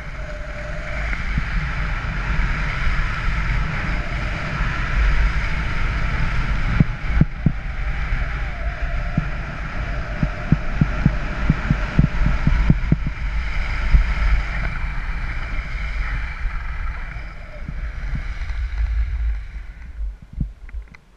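Skis hissing and scraping over spring snow during a downhill run, with wind rumbling on the camera's microphone and a series of sharp knocks in the middle of the run. The noise dies down near the end as the skier comes to a stop.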